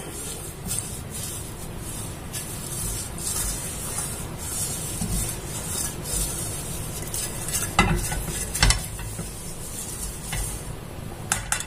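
Hot oil sizzling in a nonstick kadai while a silicone brush rubs it around the pan's sides. A couple of sharp knocks of the brush on the pan come about eight seconds in, and two more near the end.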